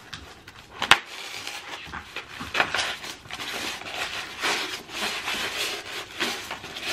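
Scissors cutting along the sides of a packaging box: a sharp click about a second in, then a few separate scraping, rasping cuts and rustles of the box.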